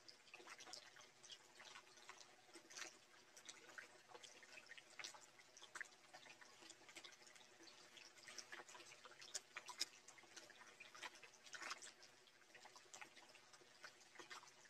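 Faint, scattered wet clicks and smacks of a person eating rice and small-fish curry by hand: chewing, and fingers working the food on a banana leaf.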